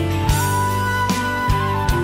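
A live rock band playing a slow ballad. A drum kit keeps a slow beat under a held lead melody note that slides up a step and stays sustained.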